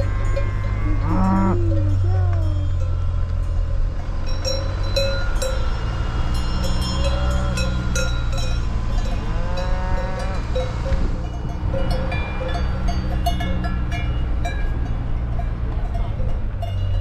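Cowbells clanking irregularly on a herd of cattle, with a cow mooing about a second in and again about nine seconds in, over a steady low engine hum.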